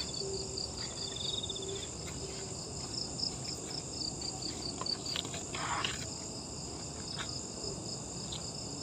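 Night insect chorus in tropical forest: a rapid, even high chirping at about five pulses a second over a steady high whine, with a buzzing trill twice in the first two seconds. A brief rustle or crackle comes a little past the middle.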